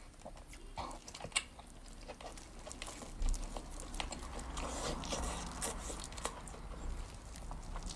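Close-miked eating sounds: chewing with wet mouth clicks and smacks, growing denser and louder about three seconds in.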